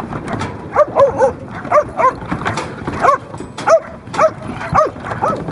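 Working kelpie barking over and over in short, sharp barks, several a second at times, while moving sheep off a truck.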